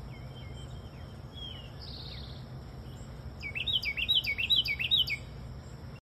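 Small songbird singing: a few faint whistled notes, then about three seconds in a loud, quick run of repeated slurred notes, several a second, lasting about two seconds.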